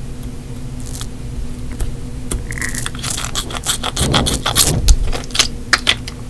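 Hands squeezing and handling a squishy mesh toy ball: crackling and scraping with a quick string of sharp clicks. It grows busier and louder from about three seconds in, is loudest around four to five seconds, and cuts off suddenly at the end.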